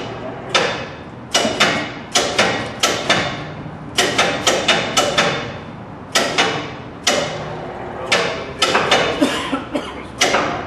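Hammer blows on steel parts of a centrifuge assembly during teardown: a string of about twenty sharp, irregular strikes, roughly two a second, each with a metallic ring.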